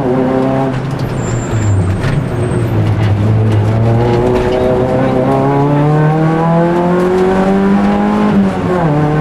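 Rally car engine heard from inside the cabin under way: the revs fall over the first second or two, then climb steadily for about five seconds under power, and dip sharply near the end before rising again.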